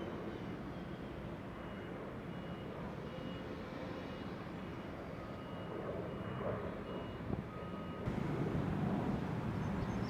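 Steady low rumbling background noise with a faint high beep repeating at even intervals for most of the stretch; the background changes and grows a little louder about eight seconds in.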